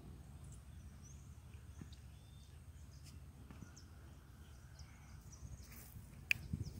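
Faint outdoor ambience: a low rumbling background with a few faint, short bird chirps here and there, and a brief sharp sound near the end.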